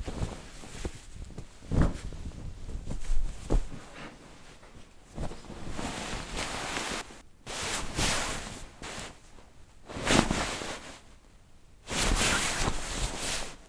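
Bed sheet being handled, rustling and swishing in a series of separate bursts with short pauses between, a few with a soft low thud. The longest rustle comes near the end.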